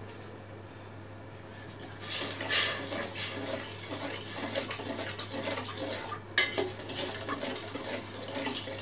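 Steel spoon stirring sugar and water in a stainless steel pot, scraping and clinking against the metal to dissolve the sugar for syrup. It starts about two seconds in, with one sharper knock of the spoon on the pot a little past the middle.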